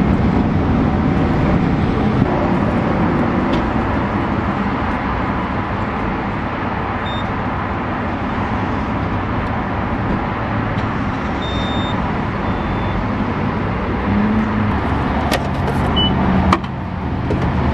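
Car driving: steady road and engine noise, with a few faint clicks near the end.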